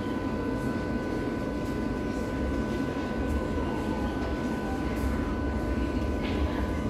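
Steady hum of a Berlin U-Bahn train standing at an underground platform with its doors open, with two thin steady high tones over a low rumble.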